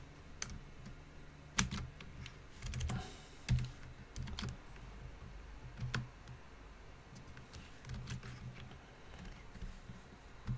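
Computer keyboard typing: sparse, irregular key clicks with pauses between them.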